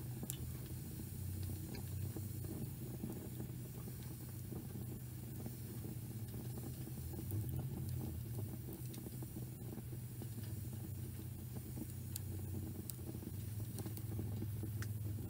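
Wood fire burning in a small stove: a steady low rumble with a few sharp crackles and pops from the burning logs, more of them near the end.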